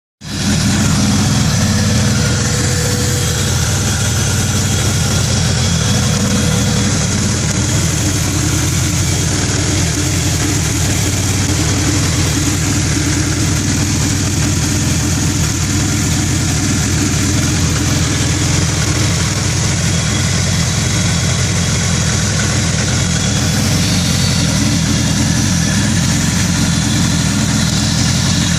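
2000 Acura Integra's four-cylinder engine idling steadily with a bad misfire.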